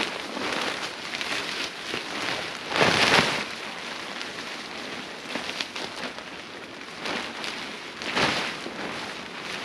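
Wind gusting with a steady rustling noise, and two louder rushes about three and eight seconds in.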